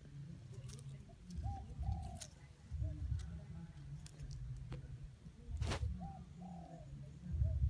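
Doves cooing repeatedly in low, rounded phrases, with a short sharp rustle about three-quarters of the way through.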